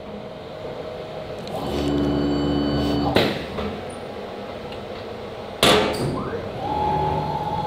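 CNC router axis drive motors whining as the gantry and spindle move through an automatic tool change, with two sharp knocks from the tool-change spindle about two and a half seconds apart, the second the loudest. Near the end the whine rises and falls as an axis speeds up and slows down.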